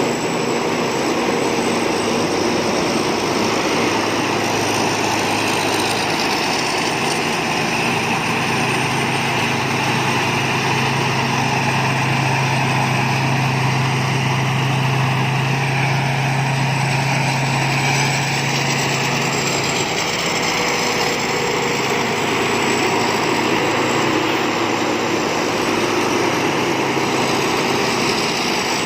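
Thai Seng Yont rice combine harvester running steadily. A low engine tone grows stronger about a third of the way through and eases back after about twenty seconds.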